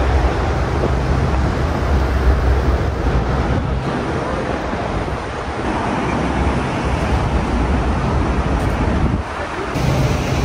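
Steady rushing city traffic noise with wind buffeting the microphone, a low rumble underneath; it dips briefly near the end.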